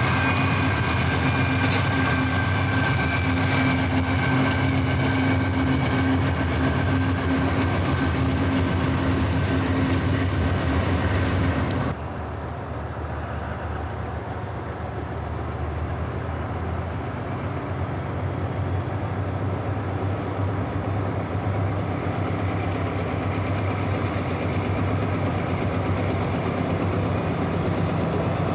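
A double-stack container freight train rolling past with a steady rumble and a few long, high whining tones. About twelve seconds in it cuts off abruptly to the quieter, steady rumble of a diesel locomotive engine running in the distance, slowly getting louder.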